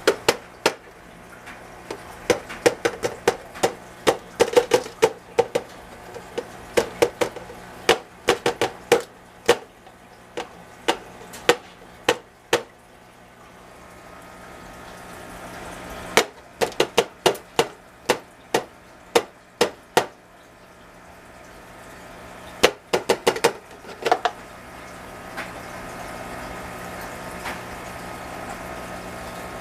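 Irregular runs of sharp clicks and light taps in three clusters, over a steady low hum and a soft hiss that swells and fades twice.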